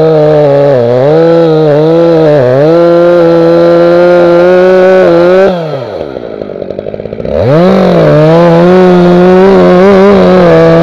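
Holzfforma G366 two-stroke chainsaw, with its top revs raised to match the Stihl MS361 it copies, cutting into a tree trunk at full throttle, its note sagging and recovering under load. About five and a half seconds in, the throttle is let off and the engine drops to a low idle for under two seconds, then revs back up and runs on at high speed.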